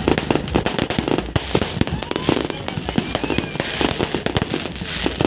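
Fireworks going off in a dense, rapid, irregular run of bangs and crackles, many overlapping.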